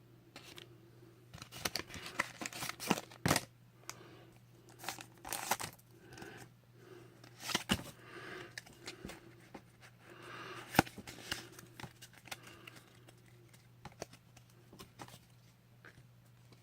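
A foil booster-pack wrapper being torn open and crinkled in the hands: irregular sharp crackles and rips, with one loud snap about eleven seconds in. Slow, heavy breaths come every couple of seconds underneath.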